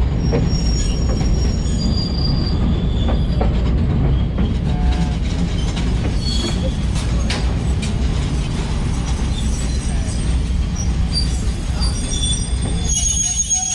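Railroad caboose rolling slowly on the track, its wheels giving a steady low rumble. Short high-pitched wheel squeals and a few clicks from the rails come through over it.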